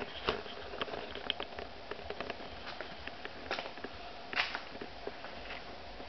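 Scattered light clicks and taps at an irregular pace, from someone moving about and handling the camera, over a faint steady hum.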